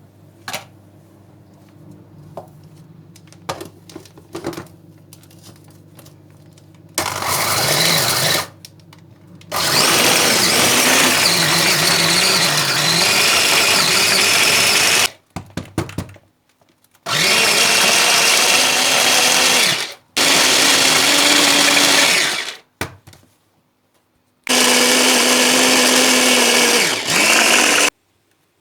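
Electric kitchen blender running in five bursts of a few seconds each, stopped briefly between them, its motor pitch wavering as the contents churn. A few light clicks come before the first burst.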